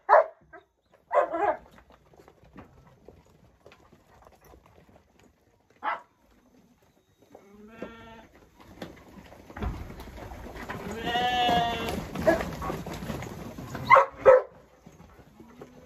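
Sheep bleating: a few short calls, then a longer pitched bleat about eight seconds in and a long wavering bleat around eleven seconds, over a stretch of rustling noise. Two short sharp calls come near the end.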